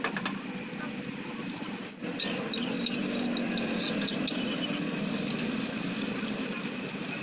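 Egg frying in hot oil in a wok over a gas burner, sizzling with small crackles, against a steady background of street traffic.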